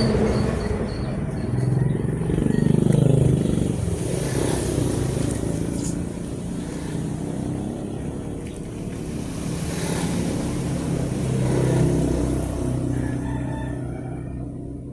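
Motor vehicle engines passing by. The sound swells about three seconds in and again near the end, then fades.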